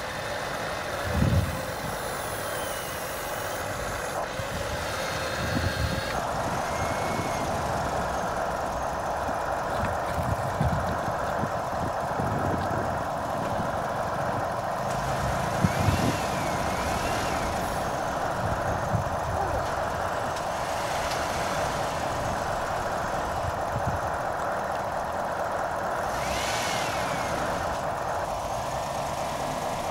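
Simulated diesel engine idling from a Huina 1593 RC excavator's built-in sound module: a steady mechanical drone that changes to a denser, steadier note about six seconds in. A few short knocks come through at times.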